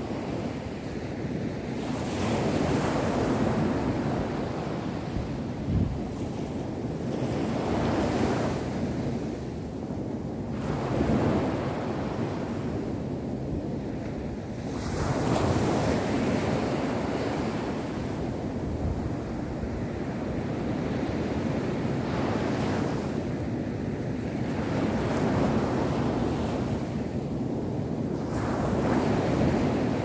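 Ocean waves breaking and washing up a sandy beach, the surf swelling and ebbing every few seconds.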